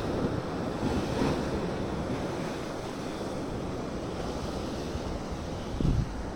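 Ocean waves breaking on the shore, with wind buffeting the microphone; a low thump stands out near the end.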